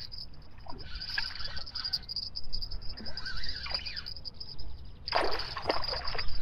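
A spinning reel being wound in on a feeder rod as a small fish is played towards the bank, over a steady high insect chirring. A louder rush of noise comes about five seconds in.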